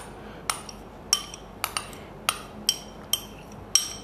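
Metal spoon tapping and scraping against a ceramic bowl while chopped onion is knocked out of it: about eight sharp clinks, each with a short ring.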